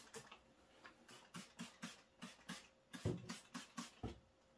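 Trigger spray bottle squirted again and again, a quick series of short spritzes about three a second, with a louder cluster about three seconds in: soapy water sprayed over a pressurized engine to find air leaks.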